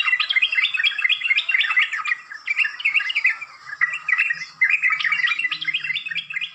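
Bird twittering: a fast, dense run of short chirping notes, with a brief lull about three and a half seconds in.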